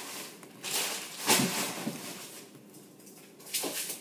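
Packing material and a shipping box being handled, heard as three short rustling bursts, the loudest about a second in and another near the end.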